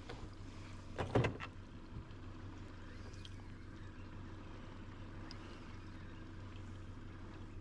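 Boat motor running low and steady, with a brief clatter of sharp knocks about a second in.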